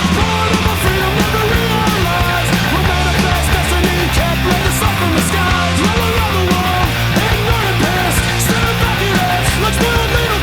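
Loud punk-style rock music with distorted guitars, a driving bass line, drums and a singing voice.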